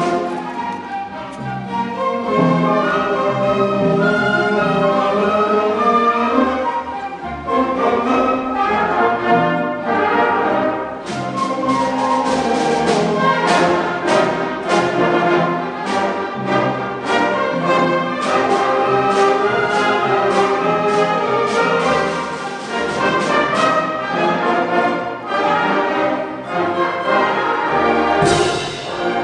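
Orchestra playing live, brass prominent over the strings. About eleven seconds in, the music turns to short, repeated accented strikes at a steady pace.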